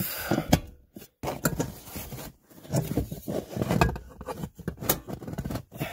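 Thin steel ECU cover plate being pulled free from behind the floor carpet: irregular scrapes and clicks of sheet metal against metal and carpet, with short pauses between.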